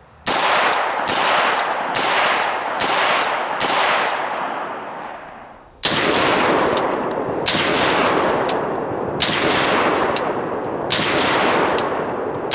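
AR-15 rifle with a 16-inch barrel and the AFAB Mini compensator firing five quick shots, under a second apart, each followed by a long echoing tail. About six seconds in, the same string plays back slowed down: the shots are duller, twice as far apart and drawn out.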